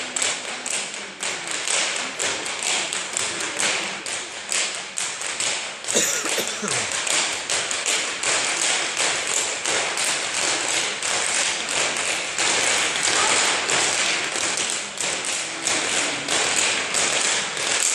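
A group of dancers' hard-soled shoes tapping and stamping on a wooden dance floor in time with each other, a steady run of sharp clicks several times a second.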